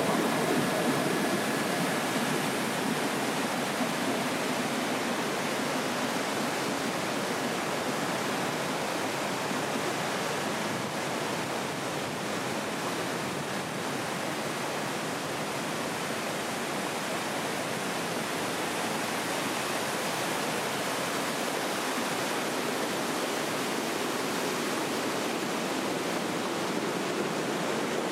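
Steady rush of fast-flowing water from a spring-fed stream.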